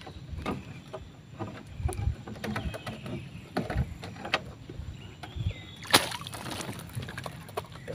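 Irregular knocks, bumps and clatter from handling gear on a small wooden fishing boat, with one sharp crack about six seconds in.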